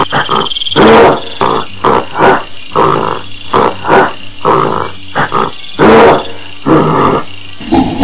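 Gorilla calling angrily: a rapid, irregular run of short, loud grunts and barks, with longer, louder roars about a second in and again around six seconds.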